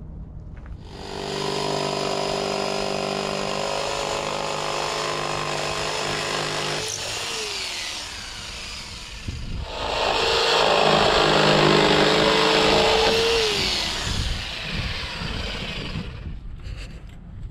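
Electric power saw cutting a plywood board in two runs, the first about six seconds and the second about four, each ending as the motor winds down with a falling whine.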